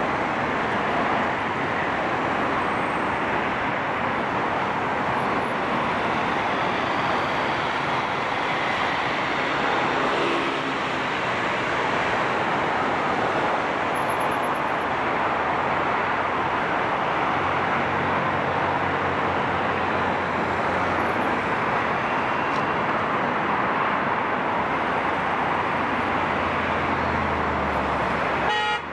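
Steady traffic noise from dense, slow-moving cars and trucks on a multi-lane highway, with a deeper engine hum from about the middle on and a short car horn toot near the end.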